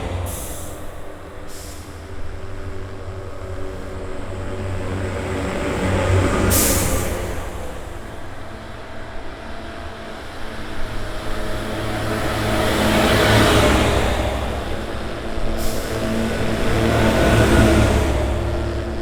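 Heavy vehicle engines running, swelling louder and fading several times, with a few abrupt shifts in the sound.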